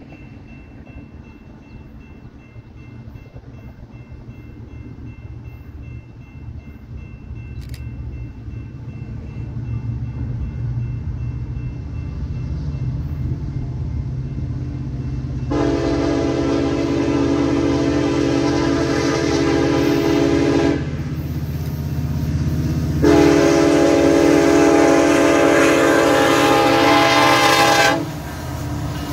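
Nathan K5LLA five-chime air horn on a BNSF SD70ACe locomotive sounding two long blasts, the first about halfway through and the second starting soon after and ending near the end. Under it the diesel engines of the lead locomotives rumble, growing steadily louder as the coal train approaches and passes.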